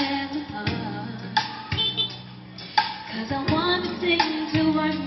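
A song with a female vocal and a steady kick-drum beat, played loud through JBL VRX932LAP line array speakers for a sound check.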